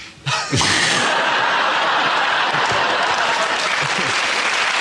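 Studio audience laughing and then applauding, breaking in suddenly about a third of a second in and keeping up at full loudness to the end.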